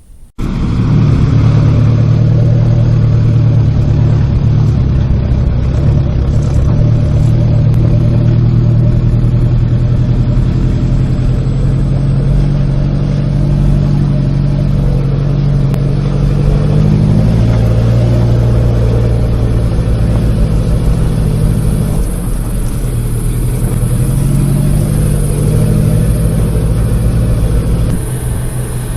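Off-road 4x4's engine running steadily, starting abruptly just after the opening and easing slightly about two-thirds of the way through.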